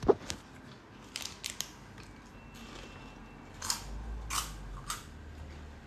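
Eating sounds close to a phone's microphone: a sharp knock right at the start, a few light clicks about a second in, then three short crunching chews in the second half.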